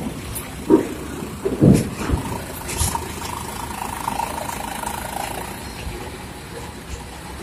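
A bus engine running steadily, with two dull thumps in the first two seconds.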